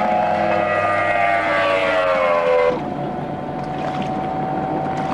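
High-performance race boat engine running flat out past the listener, its pitch falling as it goes by. About two and a half seconds in, the sound cuts off abruptly and is replaced by a steadier, quieter engine drone over water and wind noise.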